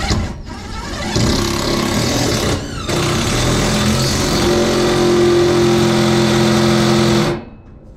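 Cordless drill running under load against a steel side piece of a wagon box, in two runs with a brief break a little under three seconds in, its pitch steady, then stopping suddenly near the end.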